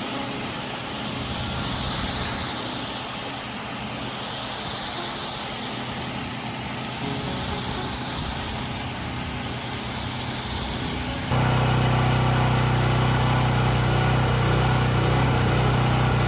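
Pressure washer spray hissing against the house, its sound swelling and fading in slow waves as the wand sweeps. About 11 seconds in it cuts off suddenly to a louder, steady low engine hum.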